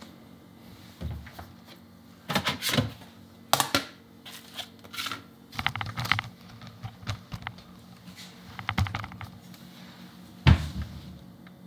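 Irregular clicks, knocks and rattles of a camera being handled and moved around a kitchen counter, ending with a sharp knock as it is set down, about ten and a half seconds in. A faint steady hum runs underneath.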